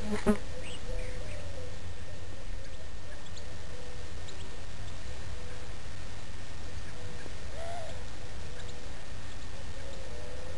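Faint, scattered outdoor bird calls and chirps over a steady low rumble, with a brief knock right at the start.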